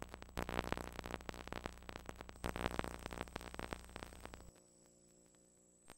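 Electronic intro sound: crackling, glitchy static over a low synthesizer drone, swelling twice, then dropping about four and a half seconds in to a faint held tone.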